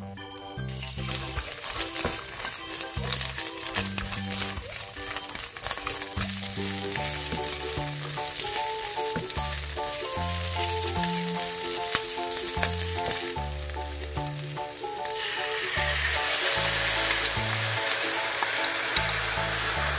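Garlic scapes sizzling as they stir-fry in hot oil in a nonstick pan, turned with a wooden spatula. The sizzle grows louder about three-quarters of the way through, when seasoning sauce hits the hot pan.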